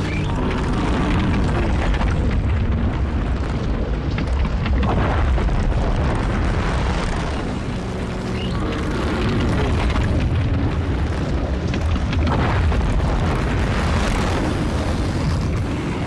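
Sustained deep rumbling sound effect, swelling and easing with a brief dip about halfway through.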